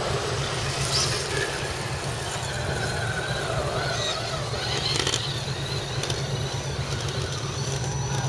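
Electric motors and gearboxes of scale RC crawler trucks whining as they climb a sandy trail, the whine rising and falling with throttle, over a steady low rumble. A few light clicks about one second and five seconds in.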